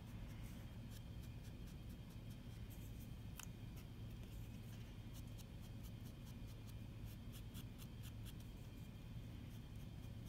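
Foam brush dabbing paint onto a foam collagraph stamp: faint, quick scratchy taps scattered throughout, over a low steady hum.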